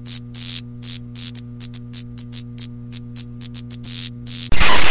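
Steady electric hum with irregular crackles, a neon-sign buzz-and-flicker sound effect. About four and a half seconds in it gives way to a short, very loud burst of static.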